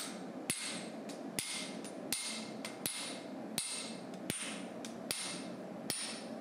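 Hammer blows on a blacksmith's flatter set on a red-hot steel knife blade on the anvil, flattening the blade by hand. About eight ringing metal strikes come at an even pace, a little under a second apart.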